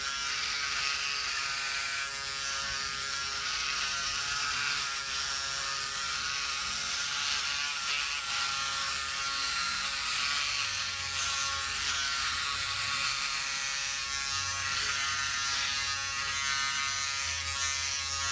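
Handheld electric shaver running steadily against the face as it shaves off stubble: a constant buzz with a hiss over it.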